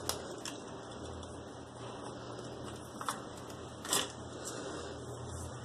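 Faint handling noises from a plastic serum sachet: a few light clicks and crinkles, the sharpest about four seconds in, over a steady low hum.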